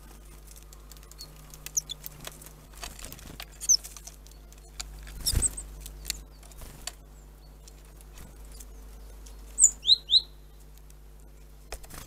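Great tit at a wooden feeder: scattered light taps and pecks of bill and feet on the wood and seed, with a louder thump about five seconds in. Three short, loud, high chirps come in quick succession near the ten-second mark, with a few fainter chirps earlier.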